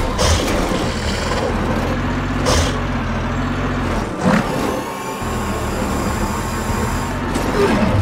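Cartoon engine sound effect for a rhinoceros-shaped tracked vehicle creature: a steady low engine rumble, with a few short sharp sounds over it.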